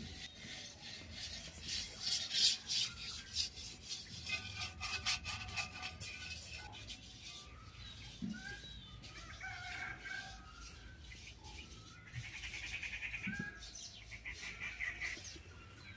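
Chickens clucking and small birds chirping, with a run of sharp clicks and taps in the first few seconds.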